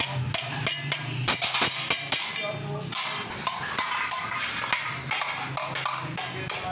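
Hammer striking a stainless steel sheet against a steel rail, tapping it into a spoon shape at about three blows a second. The blows thin out in the middle and pick up again near the end, over background music.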